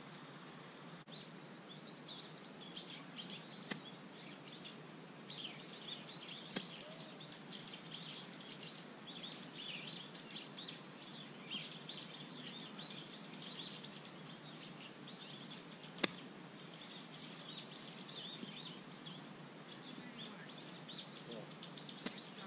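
Birds chirping and twittering, many short high calls overlapping one another over a steady outdoor hiss. One sharp click about two-thirds of the way through.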